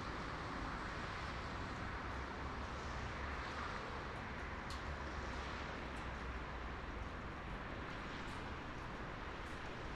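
Steady highway traffic ambience: a continuous hiss of tyres on the road over a low engine rumble, with a few faint brief ticks.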